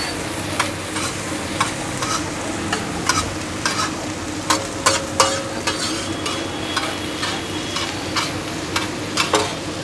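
Shredded cabbage and mixed vegetables sizzling on a large flat tawa while two metal spatulas stir and toss them. The spatulas clack and scrape on the pan at an uneven pace, about twice a second.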